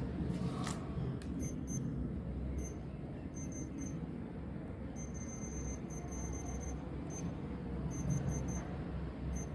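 mSwipe card payment terminal's keypad giving short, high beeps in quick runs as its keys are pressed, over a low steady room hum.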